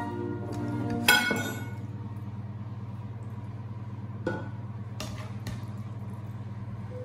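Serving spoon clinking against dishware while pasta is served from a frying pan onto a plate: one sharp ringing clink about a second in, then softer knocks a few seconds later.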